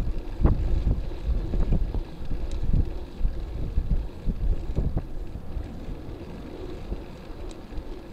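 Wind buffeting the microphone of a bicycle-mounted camera, over the low rumble of bicycle tyres rolling on a concrete parking-garage ramp. The rumble is heavier in the first half, with a few sharp knocks as the bike jolts over the concrete.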